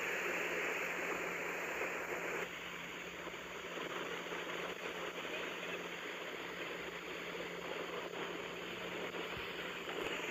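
Surf washing up over beach sand: a steady rushing hiss of breaking water, which drops a little in level about two seconds in.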